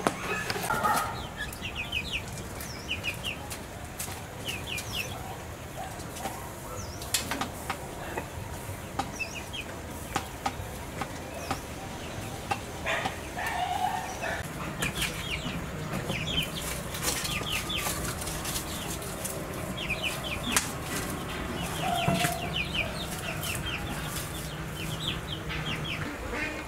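Farmyard chickens calling, with clusters of quick high chirps and many scattered sharp taps; a low steady hum runs through the second half.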